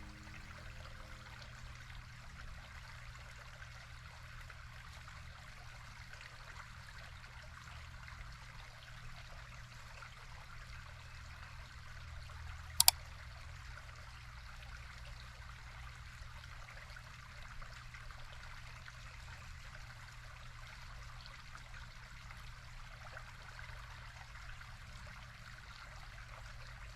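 Faint, steady rushing noise like running water, with one sharp click about thirteen seconds in.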